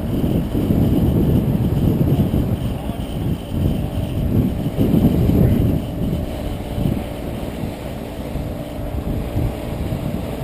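Gusty wind buffeting the microphone in uneven swells of low rumble. Under it is the faint steady hum of a Yuneec Q500 Typhoon quadcopter's rotors as it hovers against the wind.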